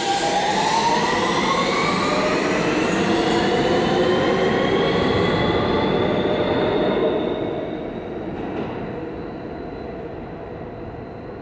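R160 subway train accelerating away from the platform: its traction motors whine in several tones that rise together, over the rumble of the wheels. The whine levels off and the sound fades after about seven seconds as the train moves off.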